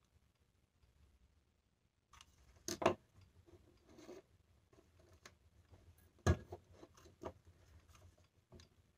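A glass jar covered in glued-on jingle shells being handled and set down on a tabletop among loose shells: scattered clicks and knocks, the sharpest about three seconds in and again a little past six seconds, with lighter ticks between.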